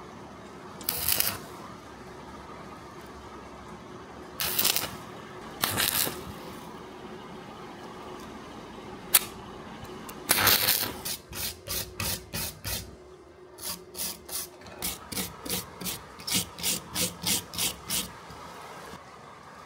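Short, dry scraping strokes: a few separate ones, then a rhythmic run of about two to three strokes a second through most of the second half, with one sharp click near the middle.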